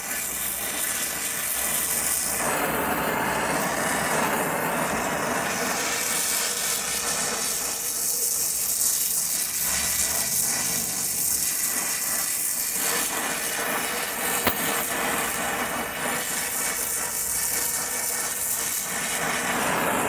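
Gas torch flame burning with a steady hissing rush, heating rusted, seized exhaust flange bolts to free them.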